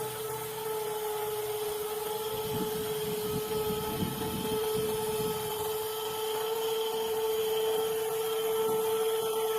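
Electric motors of a WLtoys 16800 metal RC excavator running with a steady high whine, with some low rough scraping noise mixed in around the middle.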